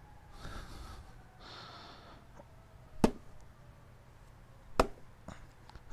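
Two hard jabs of a Microtech Tac-P spike into a level 3 Kevlar body armor panel backed by a 2x4, each a sharp knock, about a second and three quarters apart, with the armor stopping the point. Breathing close to the microphone can be heard in the first two seconds.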